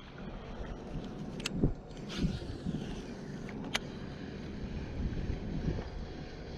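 Steady low rumble of a fishing boat under way on the river, with a few dull thumps and two sharp clicks.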